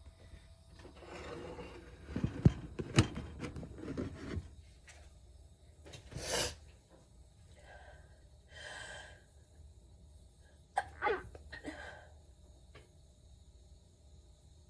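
A person sneezing: breathy gasps building up, with sharp loud sneeze bursts about two to three seconds in and another noisy burst about six seconds in, followed by a few shorter vocal noises.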